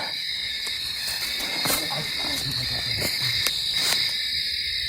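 Night-time insect chorus, a steady high chirring, with scattered rustles and a low sound underneath that the explorers take for growling.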